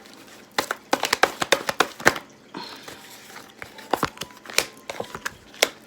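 Tarot cards being shuffled by hand: an irregular run of quick clicks and light slaps as the cards strike each other.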